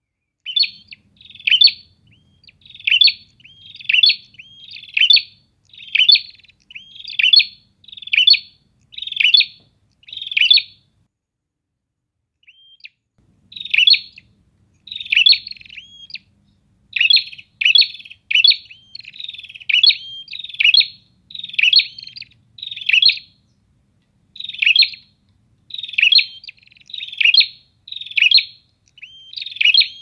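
Prinias (prenjak) calling back and forth in a busy run of short, sharp, high chirps, one or two a second, with a pause of about two seconds near the middle.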